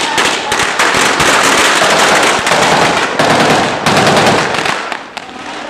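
A string of firecrackers going off in a dense, rapid crackle of small bangs, stopping about five seconds in.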